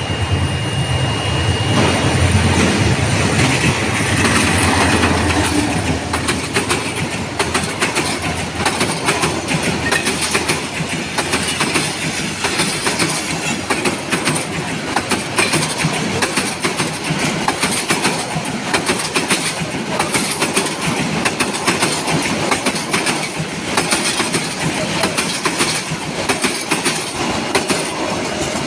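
Passenger train passing close by at speed, a continuous rumble with the wheels clattering rapidly over the rail joints and a little wheel squeal. It is loudest in the first several seconds.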